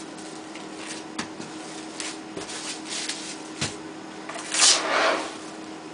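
Hands handling plastic wrap and blocks of cheese on a table: crinkling rustles of the plastic film and a few light knocks, the loudest rustle about four and a half seconds in. A faint steady hum runs underneath.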